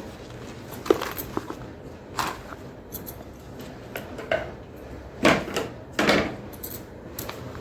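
Mini block of gym chalk being crunched, a few separate sharp crackly crunches, the loudest two about five and six seconds in.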